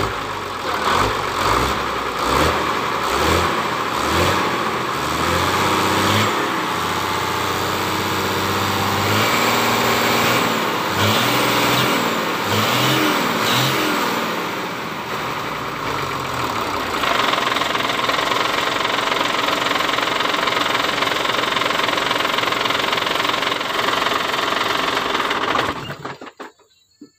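Hino FM260TI truck's diesel engine running, revved up and down several times over the first half, then held at a steady speed; the sound cuts off suddenly near the end. It is running on a swapped-in injection pump whose timing the mechanic judges, by this sound, still not quite right, with a little smoke still showing.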